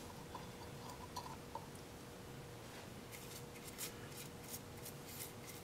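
Faint swishing strokes of a bristle brush applying sanding sealer to a Red Mallee burl bowl, repeated through the second half, after a few faint ticks at first. A faint steady hum sits underneath.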